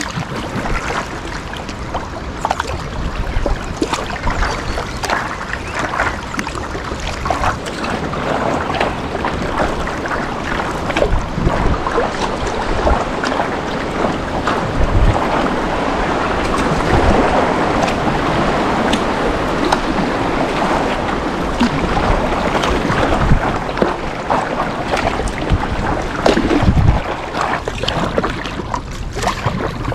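Water splashing and rushing around a kayak under way on a river, with wind buffeting the microphone.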